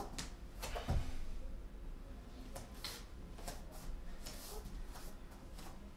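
Soft thumps and rustling of hands and feet on a rubber exercise mat during inchworm walkouts, with one heavier thump about a second in.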